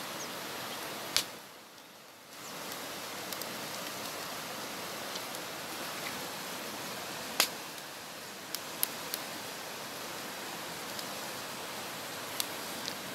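Steady rush of flowing river water, with a few sharp pops from a wood cooking fire, the loudest about a second in and about seven seconds in.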